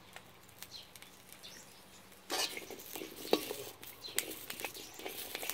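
Metal spoon stirring and scraping chilies, shallots and garlic around a hot wok while they dry-roast, heard as a light hiss with scattered clicks and knocks. It starts suddenly about two seconds in, after a quiet start.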